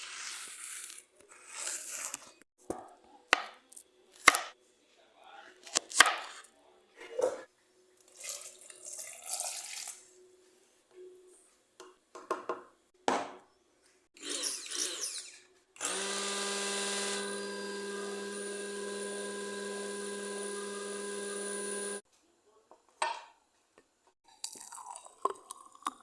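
Short knocks, clicks and rustling from ingredients being handled and put into a blender jug. Then an electric blender runs steadily for about six seconds, blending bananas with water into a smoothie, and cuts off suddenly. A few small knocks come after it.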